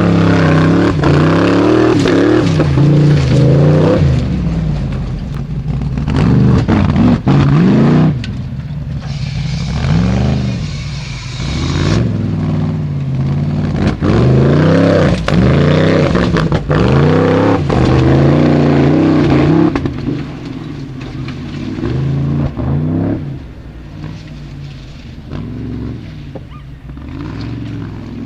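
Formula off-road competition car's engine revving hard again and again, its pitch rising and falling with each blip of the throttle. It is loudest for the first twenty seconds or so and somewhat quieter after that.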